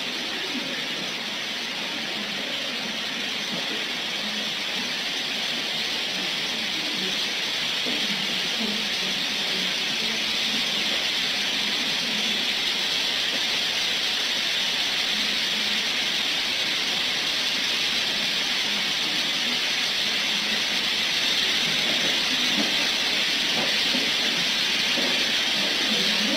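A steady, even hiss of noise, strongest in the upper-middle range, holding the same level with no breaks.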